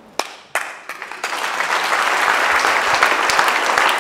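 Audience applause: a few scattered claps, then in about a second the whole room joins in steady clapping.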